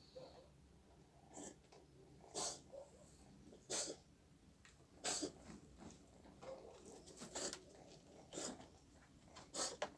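Pet cat sneezing and coughing in a string of short, sharp bursts, about seven in ten seconds, some coming in quick pairs. The owner wonders whether something is stuck in its throat or it has fallen ill.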